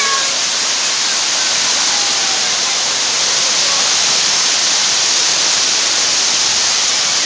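Waterfall: the steady, loud rush of falling water, an even hiss with no breaks.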